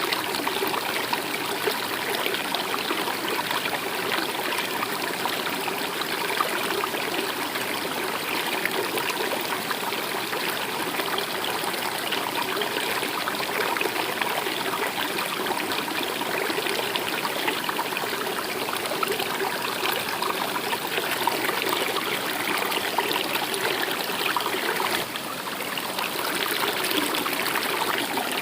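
A stream flowing and trickling steadily, with a brief dip in level about 25 seconds in.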